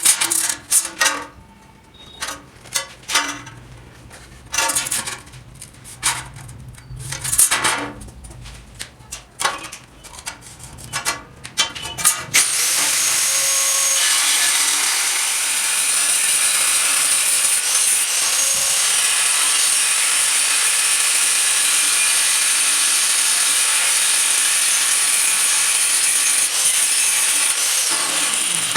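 Metal parts clanking and knocking against each other for about twelve seconds, then a power tool starts and runs steadily on metal until the end.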